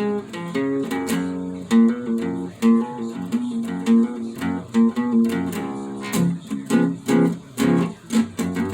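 Acoustic guitar strummed and picked in a quick run of notes, with no singing.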